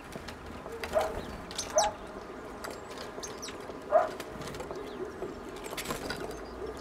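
Small birds at a wooden bird feeder: three short knocks about one, two and four seconds in, with faint, thin, high chirps of birds in the background.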